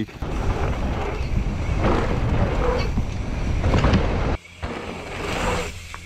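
Rumbling wind and handling noise on an action camera's microphone while a mountain bike is walked along a dirt trail, with faint voices in the background. About four seconds in, the sound cuts off abruptly to a quieter, steady low hum.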